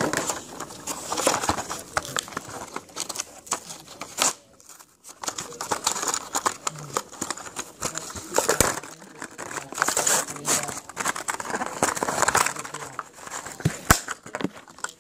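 Clear plastic blister packaging and its cardboard backing crinkling and tearing in irregular bursts as a small toy engine is pried out by hand, close to the microphone. There is a brief lull about four seconds in.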